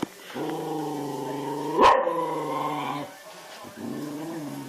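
A dog growling in long, low, steady grumbles: one held for about two and a half seconds, with a sharp click about two seconds in, then a shorter one near the end.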